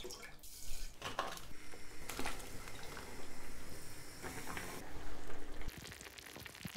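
Cooking sounds at a steel stockpot on a gas stove: soy sauce poured into the broth, then oden stew simmering, with several sharp clicks of chopsticks and utensils against the pot and ingredients.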